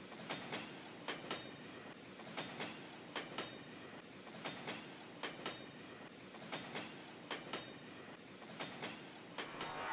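Train running on jointed track: a steady rolling rumble with the clickety-clack of wheelsets crossing rail joints, in pairs of clicks about once a second.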